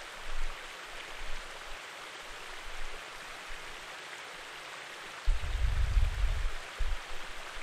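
Steady rushing of flowing stream water. About five seconds in there are low bumps and rumbling for a couple of seconds from someone moving on the floor and handling a blanket.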